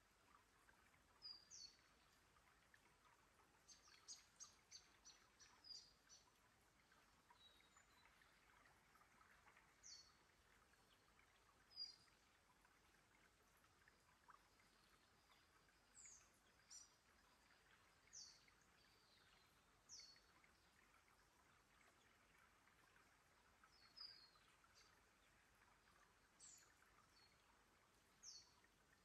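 Faint trickle of a shallow, rocky creek, with birds calling over it in short, high, sharp notes every second or two, including a quick run of about six notes around four seconds in.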